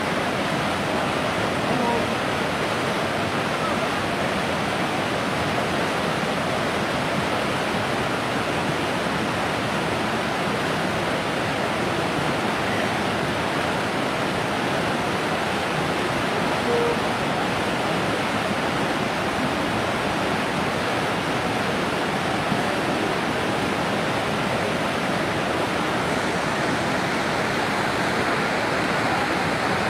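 Beas River in spate, a wide fast flow of muddy water rushing steadily.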